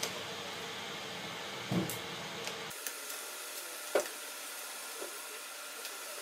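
Steady hiss with a few light clicks and a soft knock from a small T6 Torx screwdriver working screws out of a laptop's logic board; the sharpest click is about four seconds in.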